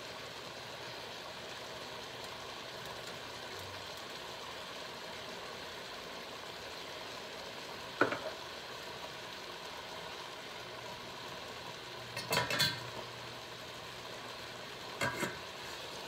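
Chicken pieces frying in a stainless steel pan with a steady sizzle, broken by a few short metal clinks and knocks about eight, twelve and fifteen seconds in.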